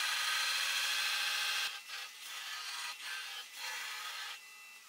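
Belt grinder grinding the edge of a steel knife blank to its laser-marked outline. A steady hiss of steel on the running belt for about the first second and a half, then several shorter grinding passes with brief breaks between them, fainter near the end.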